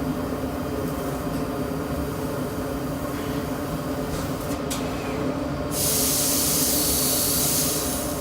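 Industrial laser cutting machine running, with a steady machine hum. A loud hiss starts suddenly about six seconds in and stops a couple of seconds later.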